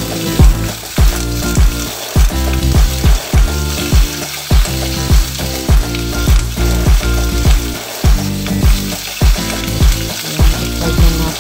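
Chicken sizzling as it fries in a nonstick pan, under background music with a steady beat about twice a second; the beat is the loudest sound.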